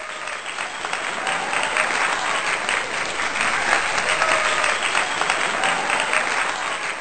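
Audience applause: dense clapping with a few cheering voices, building over the first second and starting to fade near the end.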